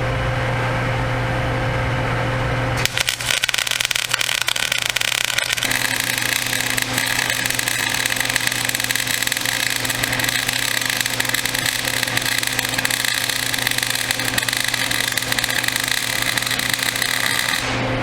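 Arc welding on steel: the arc strikes about three seconds in with an uneven, sputtering crackle, settles into a steady sizzle a few seconds later as the bead runs across, and cuts off near the end. A steady low hum runs underneath throughout.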